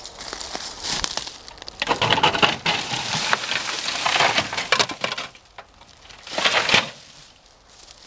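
Dry leaf litter and twigs crunching and crackling close to the microphone, in a long stretch of bursts and then one short burst near the end, as the ground debris is stepped on and pushed through.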